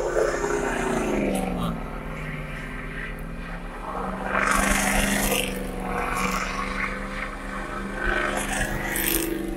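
A full-size SUV's engine is held at high revs while it spins donuts. Its pitch drops over the first second or so, then holds steady with small surges, and bursts of hissing noise come in near the middle and near the end.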